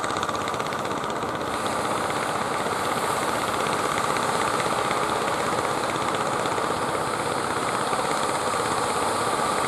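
Fishing boat engine running steadily.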